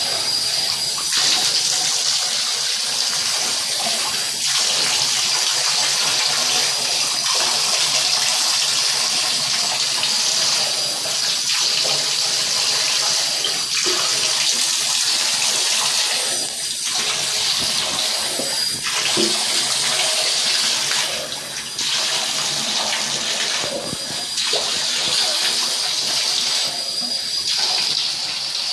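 Water running steadily into a bathtub and splashing over a small dog being washed, a continuous hiss that dips briefly a few times as the stream shifts.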